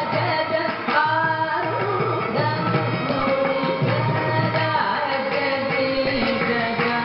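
Carnatic vocal music: a male voice singing a kriti in raga Chakravakam, rupaka tala, with held, gliding notes, shadowed by a bowed violin and accompanied by mridangam drumming.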